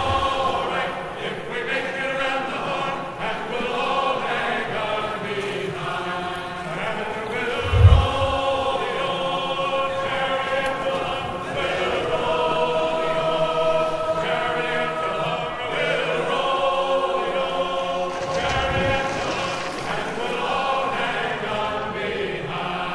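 Background music of choral chanting, with long held voices layered together and a deep drum hit about eight seconds in and again near nineteen seconds.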